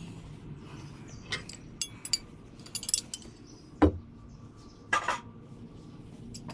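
Metal tools clinking and knocking against steel hydraulic hose fittings: a handful of short sharp clinks, some with a brief ring, the loudest knock about four seconds in.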